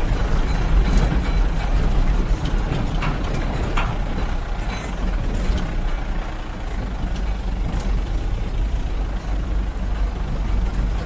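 Steady low rumble of vehicle engines, a dump truck among them, with tyre and road noise on a rough gravel road. A few short rattles sound about three to five seconds in.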